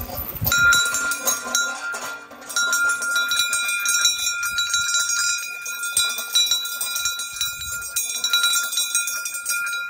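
Trailside bear bell, a brass-coloured hand bell on a post, rung hard and rapidly over and over to warn bears away, its clapper striking many times a second with a brief pause about two seconds in.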